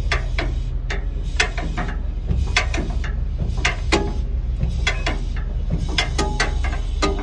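Cummins QSV91-G natural gas generator set running with a steady low hum, with irregular sharp clicks over it.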